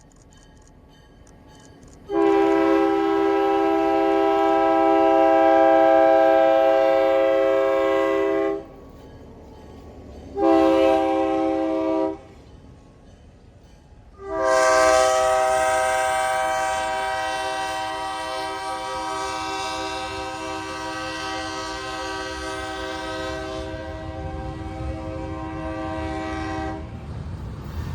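Multi-chime air horn of the lead locomotive, former Canadian National GP9U 7032, sounding for a grade crossing: a long blast, a short one, then a very long one held about twelve seconds. A low diesel rumble of the approaching train builds near the end.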